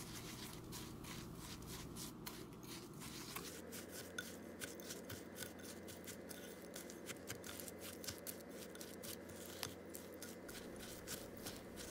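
Silicone spatula stirring and scraping milk-moistened crushed biscuit crumbs around a bowl: a faint, irregular run of quick rasping strokes.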